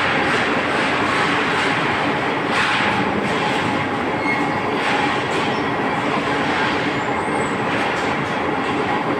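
Steel rolling mill running: the cooling bed and its roller table carrying red-hot steel bars make a steady, loud mechanical din with faint metallic knocks now and then.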